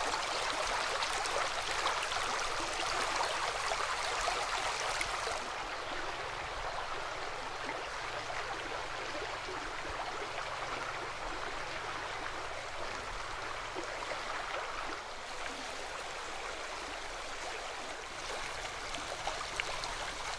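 River water flowing over stones, a steady rushing. It gets a little softer and duller about five seconds in.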